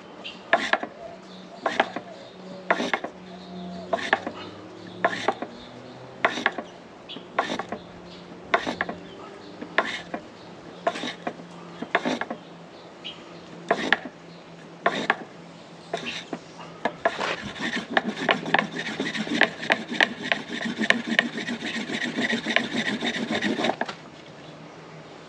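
Wooden board rubbing over a cotton ball fire roll on a wooden base, rasping back-and-forth strokes about once a second. About 17 seconds in, the strokes turn fast and continuous as the roll is worked hard toward a smoulder. They stop abruptly near the end.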